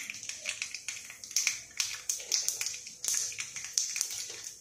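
Mustard seeds spluttering and urad dal frying in hot oil for a tempering: irregular sharp pops and crackles, several a second, over a steady sizzle.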